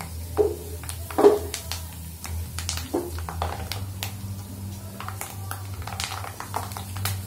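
Curry leaves, green chillies and garlic frying in hot oil in a steel kadai, crackling in many irregular pops, with a metal skimmer stirring and clinking against the pan, loudest twice in the first two seconds. A steady low hum runs underneath.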